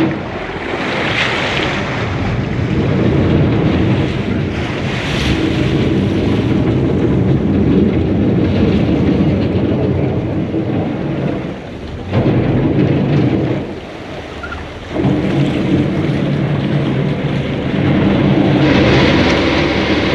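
Vaporetto water bus under way: a steady low engine drone mixed with water rushing past the hull and wind buffeting the microphone. The sound drops off briefly twice, about twelve and fourteen seconds in.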